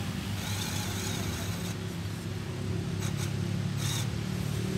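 Radio-controlled scale crawler truck's motor and drivetrain humming steadily as it crawls up a steep slope, a little louder near the end, with a few short crackles of its tires on dry pine needles.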